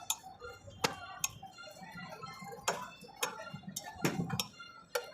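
A knife chopping through a rohu carp on a cutting block: about seven sharp, irregularly spaced knocks.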